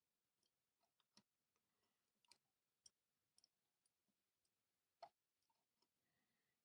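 Near silence broken by scattered faint clicks and taps, the loudest about five seconds in: small parts and tools being handled on a circuit board.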